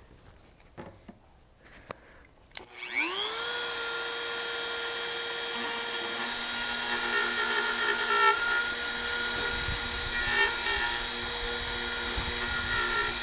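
Dremel rotary tool in a miniature plunge router base spins up about three seconds in to a steady high whine. It then routes out an Abalam shell inlay, with brief rougher patches as the bit cuts. Before it starts there is faint rustling as a dust mask is put on.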